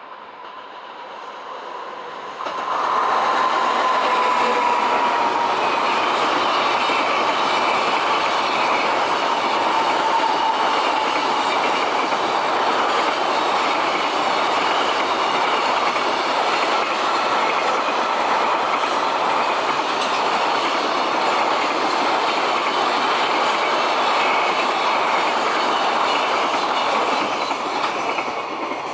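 Freight train passing over a level crossing, its wagons rolling by on the rails. The sound jumps up sharply about two and a half seconds in, holds steady for most of the pass, and begins to fade near the end.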